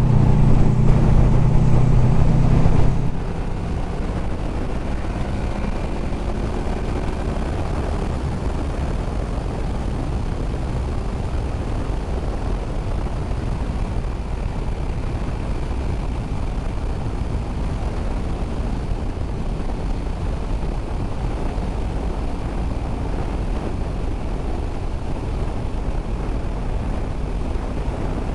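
Honda VFR800F's V4 engine running hard under throttle, then easing off about three seconds in. The ride carries on with steady road and wind noise over the quieter engine.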